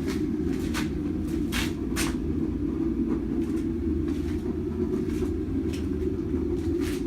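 Steady low machine hum in a small room, with scattered light clicks and ticks.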